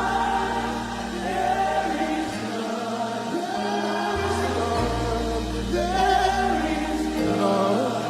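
Gospel worship music: a choir singing sustained notes over a sustained bass line from the band.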